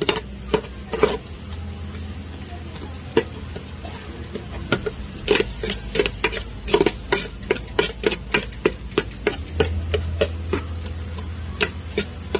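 A long metal spatula scraping and knocking against the sides and bottom of an aluminium pot while onions are stirred in oil. The knocks come irregularly, a few at first and then in quicker runs in the middle of the stirring.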